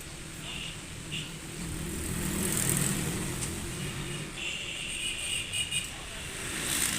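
Road traffic in the background, with a vehicle passing about two to three seconds in.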